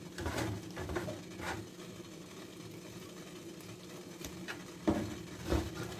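Hand rubbing and tossing damp couscous grains in a wooden bowl, soft swishing strokes a few times in the first second and a half and twice near the end, with a faint steady hum underneath. The grains are being worked with olive oil, water and salt to keep them separate before steaming.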